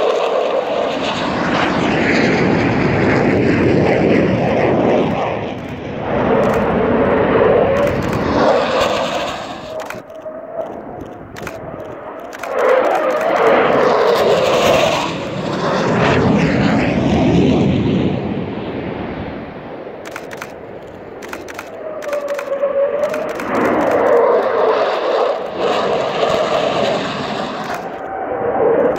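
Jet roar of USAF F-15 Eagles' twin turbofan engines on low-level passes, swelling and fading several times as the jets go by.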